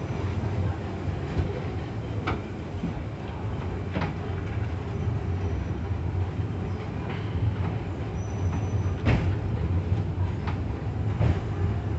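Funicular railway car running downhill on its rails: a steady low rumble with sharp clicks every second or two, and a brief high squeal about eight seconds in.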